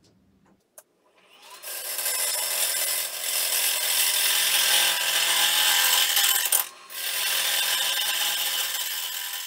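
Small turning tool cutting into a red carob (algarrobo) vase spinning on a wood lathe: a steady, loud scraping hiss that sets in about a second and a half in and breaks off briefly about two-thirds of the way through.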